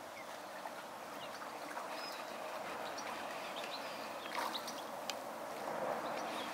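Lakeside ambience: a steady rush of running water, with many short bird chirps scattered through it and a couple of light clicks.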